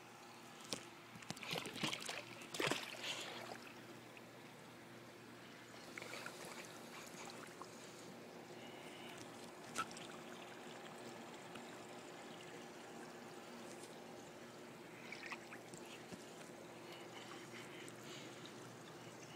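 Swimming-pool water splashing and sloshing, loudest between about one and three and a half seconds in. After that come faint lapping with a few smaller splashes, a low steady hum, and a single sharp tick near ten seconds in.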